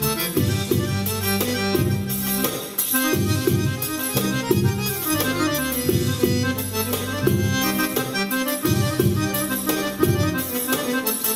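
Live oriental belly-dance music played on a Korg keyboard: an accordion-voiced melody over a steady drum rhythm.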